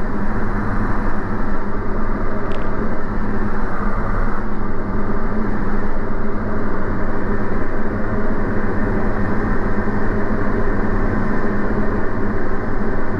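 Diamond DA40 single-engine piston engine and propeller droning steadily, heard inside the cockpit, with power reduced for the approach to landing.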